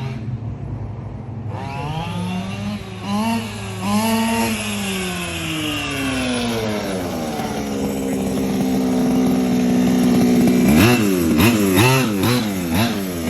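Losi 5ive-T 2.0's two-stroke gasoline engine, loud: idling, then revved in short blips from about a second and a half in, climbing to a long steady high rev, then blipped up and down rapidly near the end.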